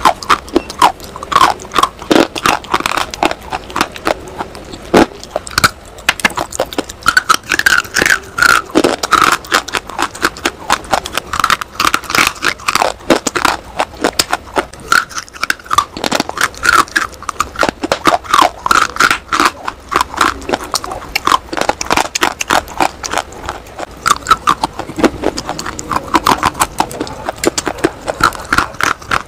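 Close-miked crunching of hard, dry pink bars being bitten and chewed: a dense run of crisp cracks and crumbly snaps.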